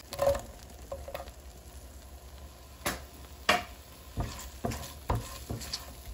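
Sliced onion frying in melted margarine in a pan, with a steady sizzle. A spatula scrapes and knocks against the pan again and again as the onions are stirred.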